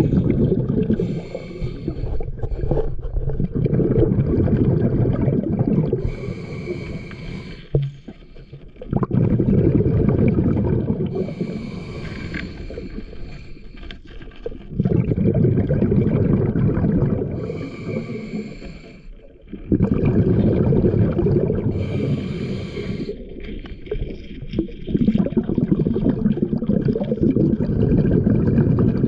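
A scuba diver breathing through a regulator, heard underwater. The exhaled air bubbles out as a loud, low rumble in long bursts, with short, quieter, hissing inhalations between them, in a cycle of about five to six seconds.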